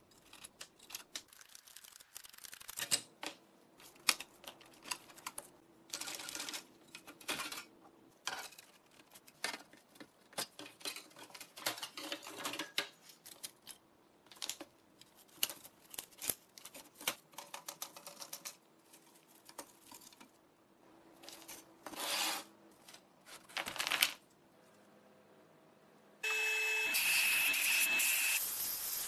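Irregular clicks and clatters of rusty metal slats and small wooden blocks being pulled apart by hand. About 26 seconds in, a sandblasting cabinet's blast gun starts with a sudden steady hiss and a high whistle in it, blasting the rusted metal part.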